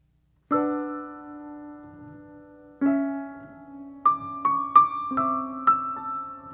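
Background piano music: a slow chord that rings and fades, a second chord, then a short run of single notes over a held chord.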